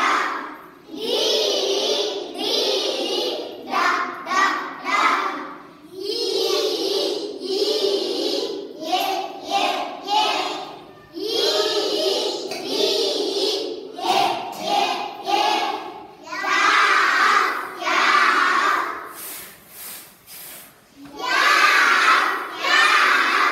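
A class of young children chanting English letter sounds together in unison, a sing-song phonics chant in short phrases with brief pauses between them.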